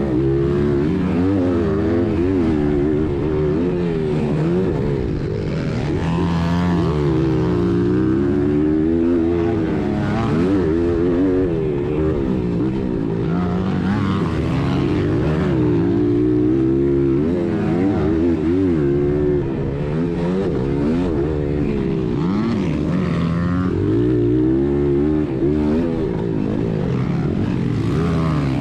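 Honda XR100R's single-cylinder four-stroke engine ridden hard, revving up and falling back again and again as the throttle opens and closes and the gears change, its pitch rising and dropping many times.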